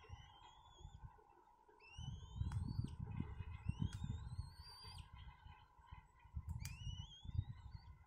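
Black-winged kites calling at the nest: about four wheezy whistled calls, each rising in pitch over roughly a second, the kind of begging calls chicks give while being fed. Underneath is a low rumble and a faint steady hum.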